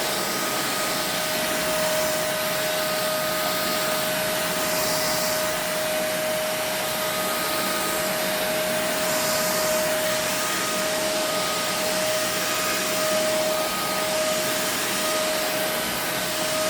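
Kenmore Intuition upright vacuum cleaner running steadily, its motor giving a constant whine over the rush of suction.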